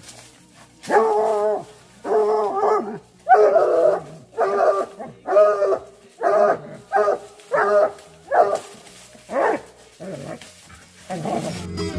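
American Foxhounds baying: about ten loud, drawn-out pitched bays, the first few long and the later ones shorter and coming quicker.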